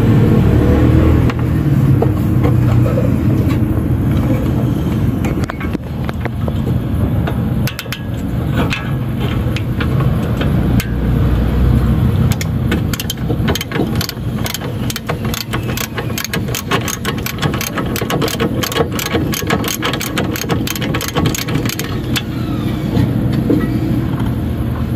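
Ratchet wrench clicking in quick runs as the upper bolt of a Honda Civic EK's brake caliper is backed out, over a steady low rumble.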